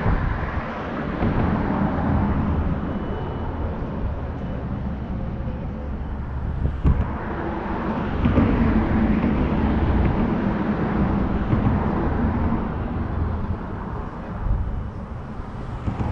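Steady low rumble of motor vehicle noise, swelling about halfway through, with a constant low engine hum underneath.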